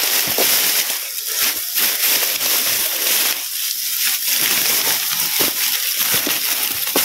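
Irregular crunching and rustling of footsteps pushing through grass and brush, over a steady high hiss.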